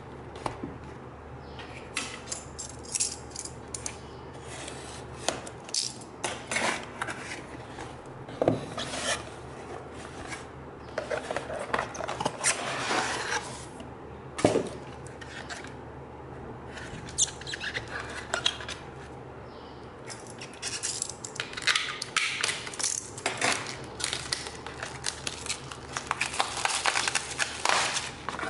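A cardboard shipping box being opened and handled by hand: cardboard rubbing and scraping, with many sharp clicks and crinkles in irregular spurts as flaps are folded back and the boxed phone is worked out of its cardboard tray.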